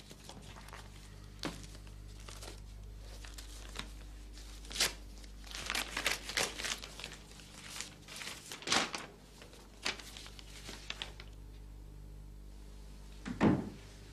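Letters and envelopes being sorted and picked up by hand: on-and-off paper rustling and crinkling, busiest in the middle, over a steady low hum. One louder short sound comes near the end.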